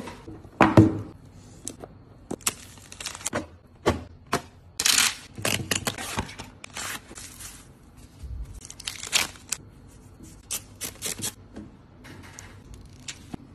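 Packaging handled and torn open by hand: crinkling plastic air-column wrap and cardboard, and the tear strip of a screen protector's cardboard box ripped open, in a series of short irregular rustles and rips.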